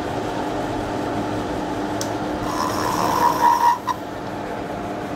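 Vertical milling machine running with a steady hum as its spinning form cutter shapes a white brush-handle blank. In the middle, a louder high squeal from the cut lasts about a second and stops abruptly.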